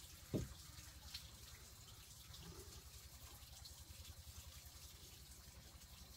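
Faint clicking of chopsticks stirring in a ceramic bowl, over a steady low rumble, with one dull thump about half a second in.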